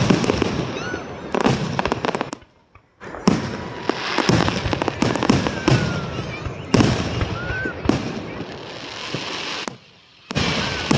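Aerial fireworks going off: dense crackling and popping with repeated sharp bangs, dropping out to near silence twice for a moment.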